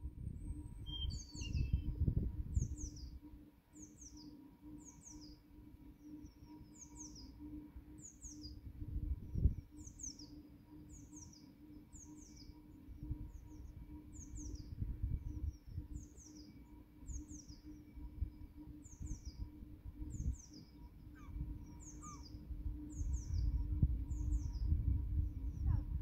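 A small songbird singing a long, even series of short, high, falling notes, a little over one a second, over low rumbling noise.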